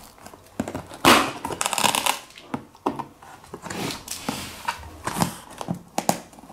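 Packing tape on a cardboard box being slit with a small knife blade and pulled away: irregular scraping, crackling and tearing, loudest in a rip about a second in that lasts about a second.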